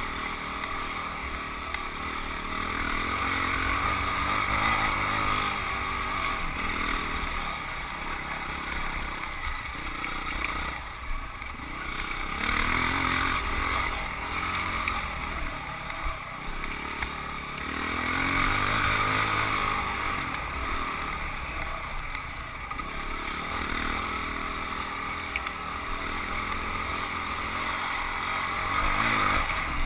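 Husqvarna 449 dirt bike's single-cylinder four-stroke engine running under way on a trail, its revs rising and falling every few seconds with throttle and gear changes.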